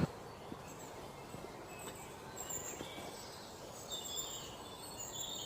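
Faint outdoor background noise with scattered short, high bird chirps, more of them near the end.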